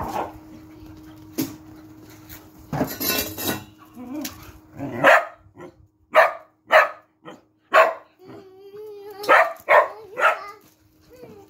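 Bavarian Mountain Hound barking, about seven short sharp barks in quick bunches from about five seconds in, over a faint steady hum.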